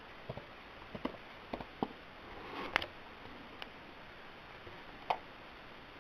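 Handling noise: scattered faint clicks and taps, a brief rustle with a sharp click a little before 3 seconds in, and a louder knock about 5 seconds in.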